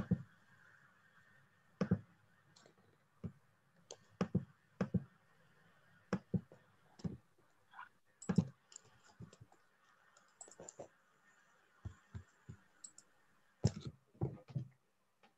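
Irregular clicking at a computer: about twenty separate sharp clicks at uneven intervals, some in quick pairs and short clusters.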